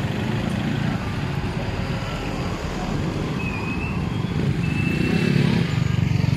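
Engine and road noise of a vehicle driving along a town street, a steady low rumble that grows louder about five seconds in.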